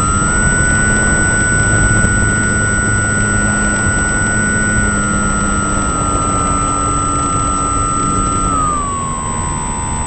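An engine running under load with a steady whine over a rushing noise. Its pitch rises at the start, holds, eases down a little midway, and drops back near the end as the revs change.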